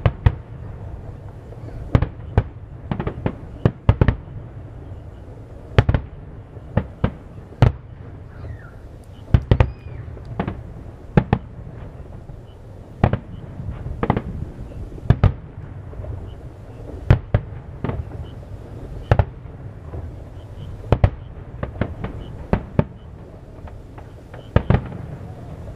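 Aerial firework shells bursting overhead, a steady string of sharp booms at irregular intervals, often one or two a second, over a continuous low rumble.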